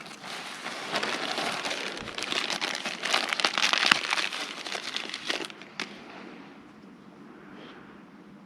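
Rapid crackling clicks and rustling from small plastic and metal parts of a planter seed meter being handled, with a sharp click near the end.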